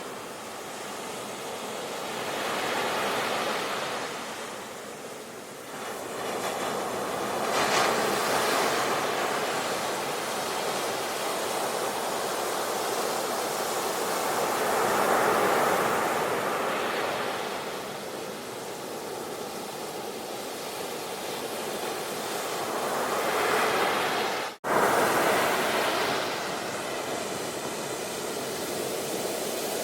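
Ocean waves washing onto a shore, the surf swelling and falling back every few seconds. The sound cuts out abruptly for a split second about three-quarters of the way through, then resumes.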